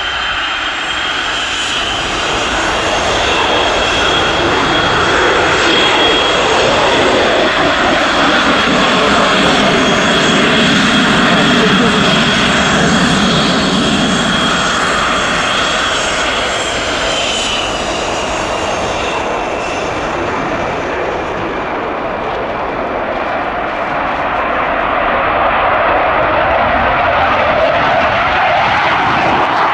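Fighter jet engines running loud: a steady high whine over a broad roar. The roar swells through the middle and again near the end, and the whine drops slightly in pitch a little past halfway.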